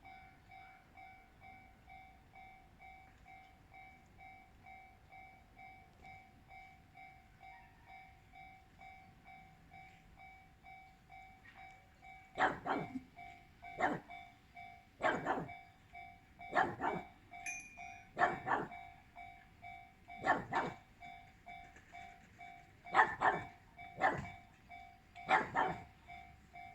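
Japanese level-crossing warning bell ringing steadily, about two strokes a second. From about halfway through, a dog barks repeatedly, loud single barks a second or two apart that stand out over the bell.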